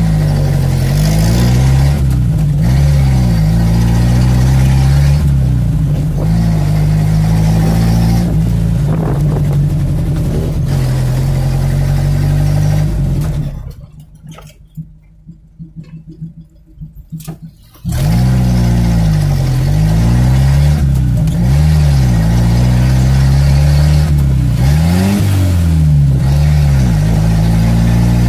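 Chevrolet Opala engine heard from inside the cabin while driving, its pitch rising and falling repeatedly as it accelerates and eases off. It goes much quieter for about four seconds midway, then comes back just as loud.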